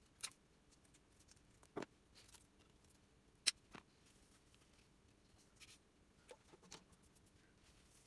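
Near silence, broken by a few faint, short clicks and rustles as gloved hands work potting soil in a plastic plant pot; the sharpest click comes a little past the middle.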